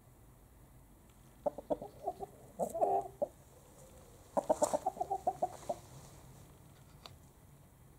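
Chicken clucking in two runs of quick, short clucks, the first starting about a second and a half in and the second just after the midpoint.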